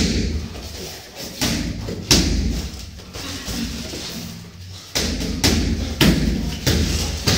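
Gloved punches and kicks landing in kickboxing sparring: sharp thuds and slaps, a few spaced out at first, then a quicker run of about five blows in the second half.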